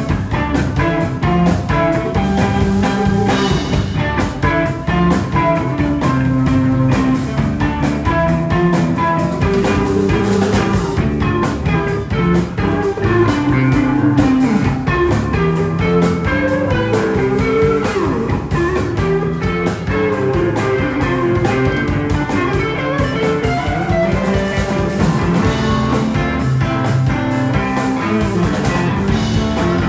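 Electric guitar playing a bluesy lead line with bent notes over a steady bass part and drum kit, live band music.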